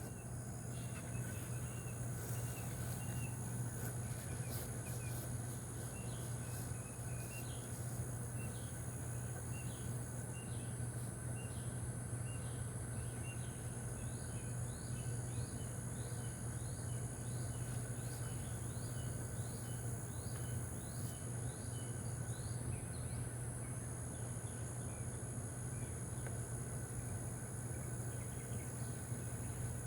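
Low steady hum of honeybees around an open hive during a frame inspection, with a steady high insect drone behind it. A bird calls in quick repeated short rising chirps through the middle stretch.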